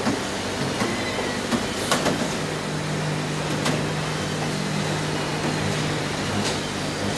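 Car assembly plant noise: a steady mechanical hum and noise bed, with a deeper drone coming in about two seconds in and a few sharp metallic clicks.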